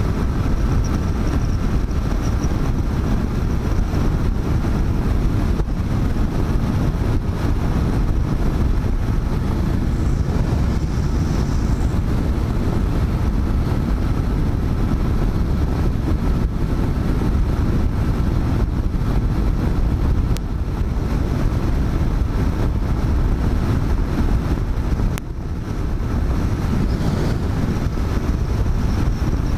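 Motorcycle cruising at motorway speed: steady wind rush mixed with engine and tyre noise, with two brief dips in loudness about twenty and twenty-five seconds in.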